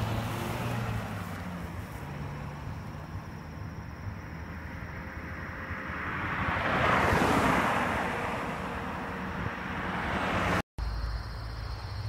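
A car passing on the road: its tyre and engine noise swells to a peak about seven seconds in, then fades away, over a steady low background hum.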